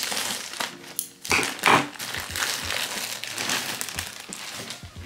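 Plastic poly mailer bag crinkling and rustling as it is handled and opened by hand, loudest about one and a half seconds in.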